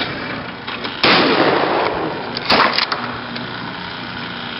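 A shotgun shot at a thrown clay target about a second in, its report fading over about a second, followed by two short sharp cracks about a second and a half later.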